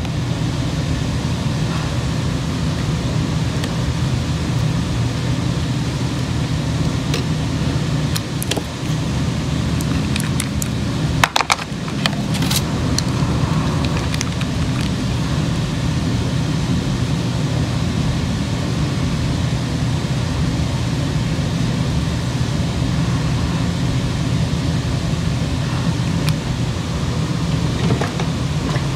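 A steady low mechanical hum, like a motor or fan running. Over it, a few sharp clicks and taps, the loudest about eleven to thirteen seconds in, as gel polish bottles and brush caps are handled.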